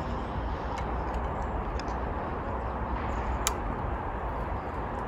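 Steady outdoor background noise with a few faint, sharp clicks; the clearest comes about three and a half seconds in.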